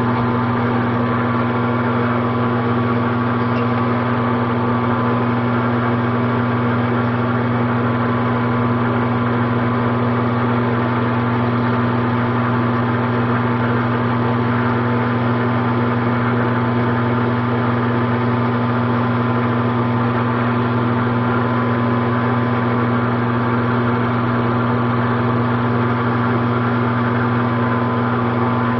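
Metal lathe running steadily, its motor and spindle giving a constant low hum with a fainter higher tone above it.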